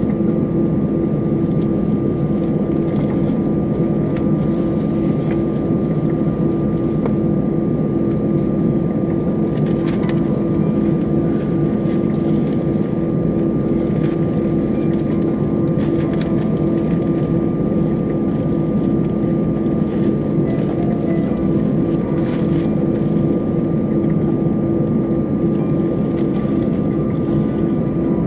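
Airbus A320 cabin noise by the wing: the jet engines idling while the aircraft taxis, heard as a loud, steady hum with a few constant tones.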